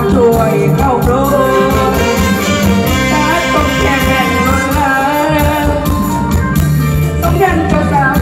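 Live Isan luk thung band music over the stage speakers: a steady beat and bass under a wavering lead melody.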